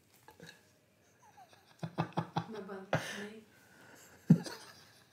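Brief soft laughter and breaths, broken by a few sharp mouth clicks, after a near-quiet first second or so.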